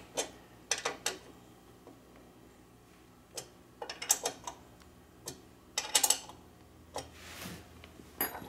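Allen wrench clicking against metal as screws are tightened snug into a steel plate, in short scattered clusters of sharp ticks with pauses between turns.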